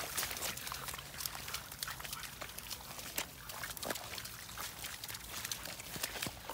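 Footsteps and dog paws splashing through waterlogged grass and shallow puddles: a run of short, irregular splashes and rustles.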